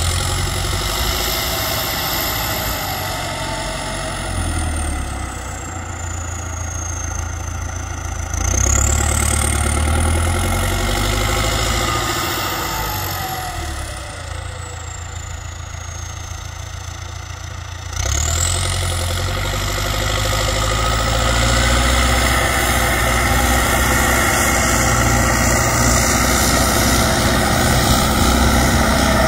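Belarus MTZ 1025.4 tractor's turbo diesel running under ploughing load through a straight-pipe exhaust. The engine note steps up twice. Each time the turbo whistle climbs high and then slowly falls away, three rises in all.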